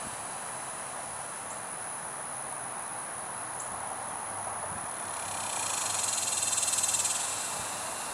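Outdoor nature ambience: a steady hiss with a faint high insect drone, and a fast, high-pitched buzzing trill that swells and fades about two-thirds of the way in.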